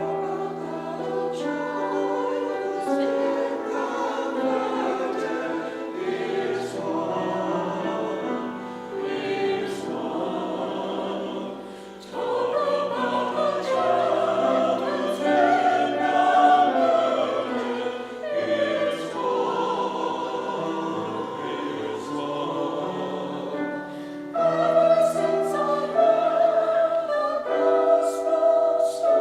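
Church choir singing, with sustained chords.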